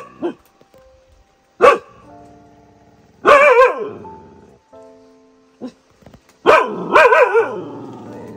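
Dog barking in four loud bursts a few seconds apart, the longer ones wavering in pitch, over soft background music with held notes.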